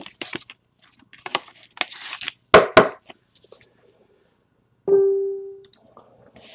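Rustling and clicking of a trading card being handled in a clear plastic holder, with two sharp clicks a little before the three-second mark. About five seconds in, a single short musical tone rings and fades within a second.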